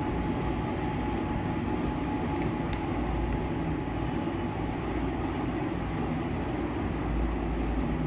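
A steady machine rumble with a faint constant hum, unchanging throughout.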